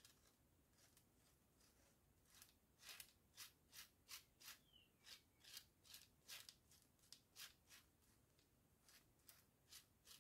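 Faint scraping of a knife spreading gold crackle paste on a card: a run of short strokes, about two a second, starting a couple of seconds in, then after a short pause a few more near the end.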